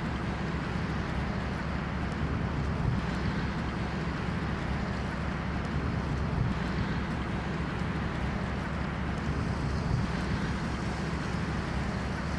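A boat's engine running steadily, with a low hum under the rush of water.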